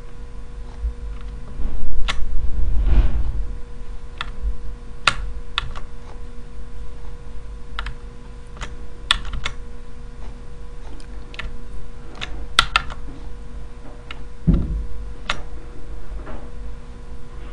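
Computer keyboard keys clicking in scattered single presses over a steady low hum. A louder low rumble swells about two seconds in, and a short low thump comes near the end.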